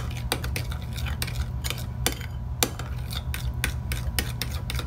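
Metal spoon stirring a thick ketchup and brown sugar glaze in a ceramic bowl, clinking and scraping against the bowl several times a second, over a steady low hum.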